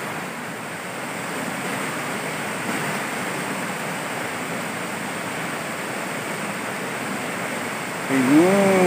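River water rushing steadily over rocks and boulders. Near the end a person's voice briefly rises and then falls in pitch.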